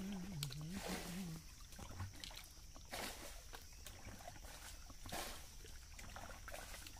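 Hands sloshing and splashing in shallow, muddy stream water, in short splashes about every two seconds. A person's voice with a wavering pitch carries on for the first second or so.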